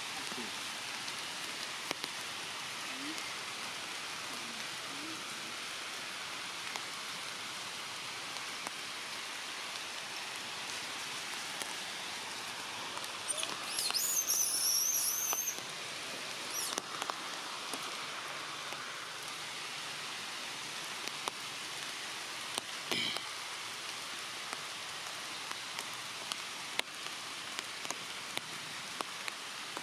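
Steady rain, with scattered sharp drop ticks. About halfway through, a high, wavering call rises above the rain for about two seconds.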